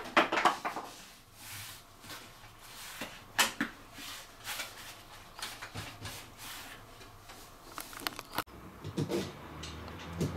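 Scattered clicks, light knocks and rustles of objects being handled, densest in the first second. A low steady hum comes in after about eight seconds.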